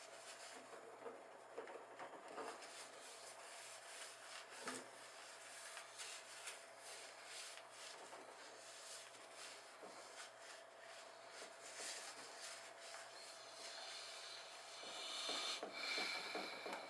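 A hand wiping the top of a small fridge with a wad of tissue: a run of faint rubbing strokes, a little louder near the end, over a faint steady hum.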